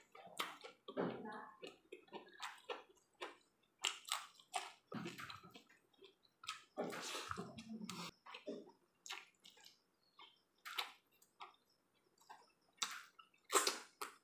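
Eating rice and chicken curry by hand: wet, sticky squelches of fingers kneading rice on a plate and smacks of chewing, in an irregular run of short clicks, the loudest near the end.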